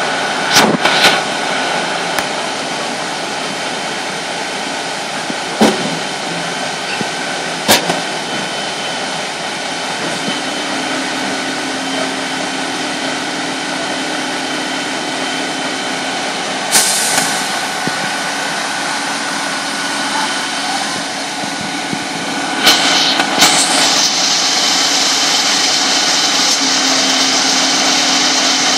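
Fire engines idling below, a steady engine hum with a few sharp knocks over it. About 23 s in there is a short burst of noise, and the hiss is louder after it.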